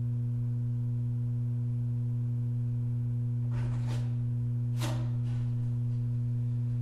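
Steady low electrical hum with a stack of even overtones, with two brief noises about three and a half and five seconds in.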